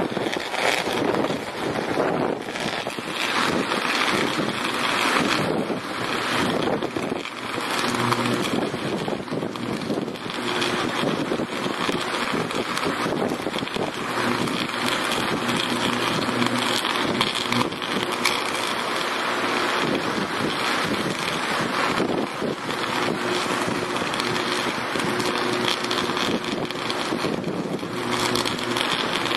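Sustained high-voltage arc burning at a fuse cutout on a power-line pole: a continuous crackling buzz, with a low steady hum under it for much of the time.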